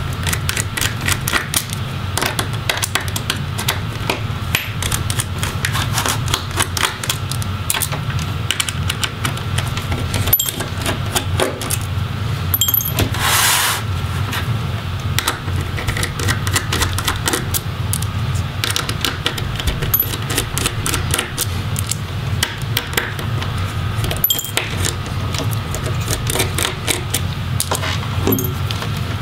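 Small Phillips screwdriver backing out the metal hinge screws of a laptop display assembly: a continuous run of rapid, irregular metallic clicks and ticks, over a steady low hum, with a short scraping rush about halfway through.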